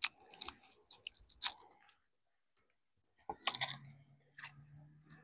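Garlic being peeled and cut by hand: a quick run of crisp crackles and crunches in the first second and a half, and another short cluster about three and a half seconds in. A faint low hum comes in during the second half.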